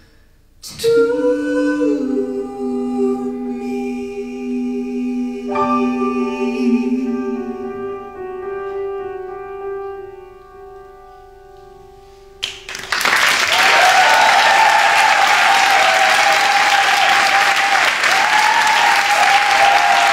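A man and a woman hold the final sung notes of a duet over piano, the lower voice dropping out first and the chord fading away. About thirteen seconds in, the audience breaks into loud applause and cheering.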